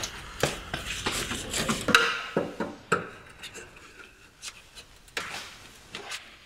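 A screwdriver scraping and clicking as it turns Phillips-head screws out of a car's plastic splash shield and wheel-arch liner, with scattered knocks of tool on plastic. The scraping is loudest in the first two seconds; after that there are only a few separate clicks and one short scrape.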